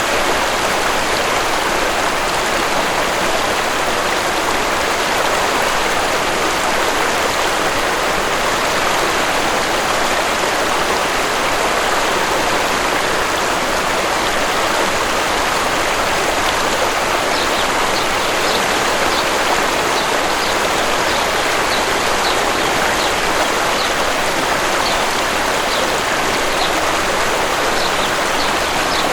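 Steady rush of a waterfall. About two-thirds of the way through, a small bird starts chirping, short high notes repeating roughly once a second.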